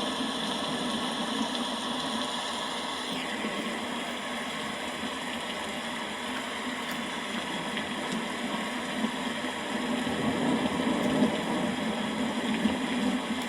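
Rain falling steadily, an even hiss with no thunder heard.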